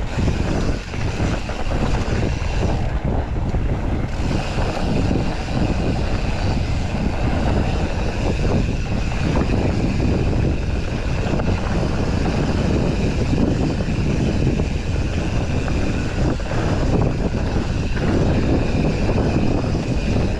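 Mountain bike riding fast over a dirt forest trail: steady tyre rumble with irregular rattles and knocks from the bike over roots and bumps, and wind buffeting the chest-mounted camera's microphone.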